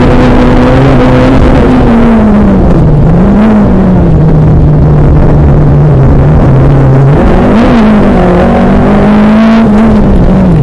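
Citroën AX F2000/12 rally car's engine, heard from inside the cabin, running hard on a special stage. It holds high revs, drops a couple of seconds in and stays lower, rises again about seven seconds in, and dips near the end.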